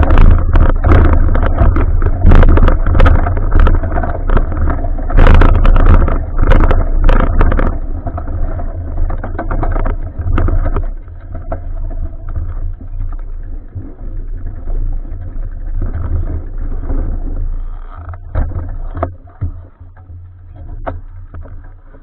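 Wind rumbling and buffeting over an action camera's microphone during a bicycle ride, with sharp knocks and rattles from the bike over bumps. The rumble and knocks ease off gradually over the second half.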